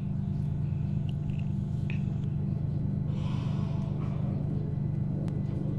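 Steady low drone of a passenger train heard from inside the carriage as it moves slowly along a platform, with a brief faint hiss about three seconds in.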